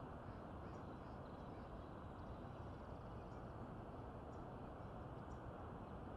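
Faint, steady outdoor rushing noise with a few scattered faint high chirps.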